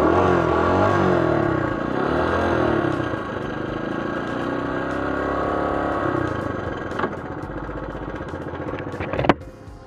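A 1979 Honda CT90's small single-cylinder four-stroke engine runs cold just after a stall, its revs rising and falling unevenly as the bike rides on. Near the end a sharp click comes and the engine sound drops away.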